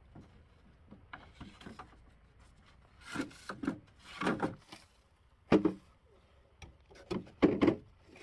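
Wood being handled: several separate scraping rubs and knocks, with a sharper knock about halfway through.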